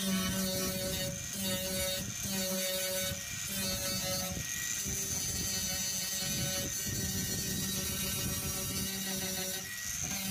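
A 4.5-inch angle grinder with a sanding disc running against an aluminum canoe hull, grinding down cured epoxy patches. Its motor whine dips and recovers several times in the first few seconds as the disc is pressed into the work, then runs steadier.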